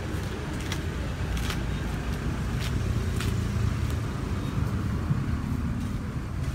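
Steady low rumble of street traffic, with a few light, sharp clicks in the first few seconds.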